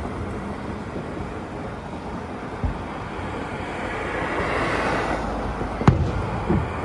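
Fireworks shells bursting: a dull low boom a few seconds in, then a sharp loud bang near the end followed by rumbling echoes, over a steady rushing background.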